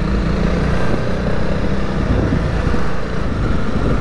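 Honda CRF300L's single-cylinder four-stroke engine running as the bike is ridden, in a steady, loud, rough wash of sound. A steady engine tone fades in the first couple of seconds.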